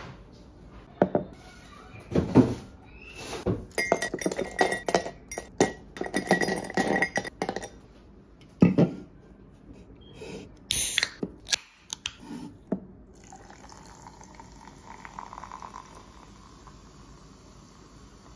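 Ice cubes clattering and clinking into a glass beer mug for several seconds. Then a soda can opens with a short sharp hiss, and from about two-thirds of the way through, carbonated Fanta is poured over the ice and fizzes steadily.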